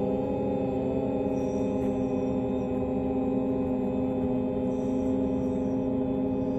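Steady ringing drone of a meditation gong, several tones held without a break, with faint high shimmers now and then.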